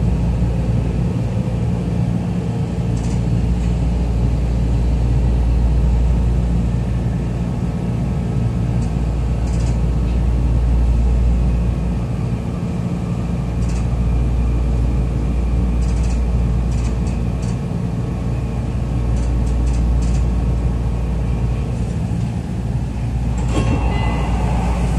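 Sotetsu 21000-series electric commuter train heard from inside the car: a steady running rumble with faint motor tones and scattered wheel clicks as it comes into the station. Near the end the sliding doors open with a short burst of door noise.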